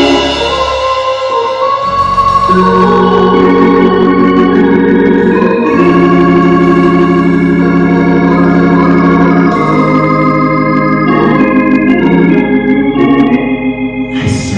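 Organ playing held chords that change every second or two over a sustained bass line.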